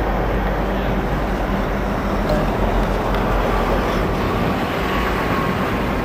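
Road traffic with a semi-truck going by: steady engine and tyre noise.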